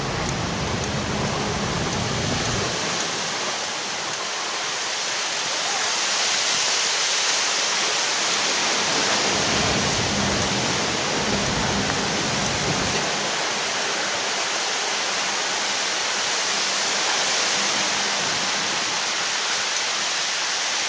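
Steady, even hiss of outdoor background noise, brightest in the high end, with a low rumble for the first couple of seconds and again around the middle.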